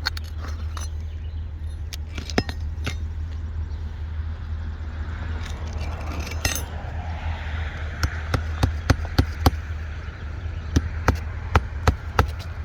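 Sharp metallic taps and clinks of a roofer's hand tools working on shingle nails, with two quick runs of strikes near the end, over a steady low rumble.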